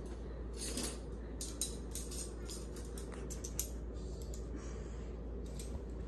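Metal spoons and forks clinking together as they are taken by the handful from a dishwasher's cutlery basket: a run of small, irregular clinks.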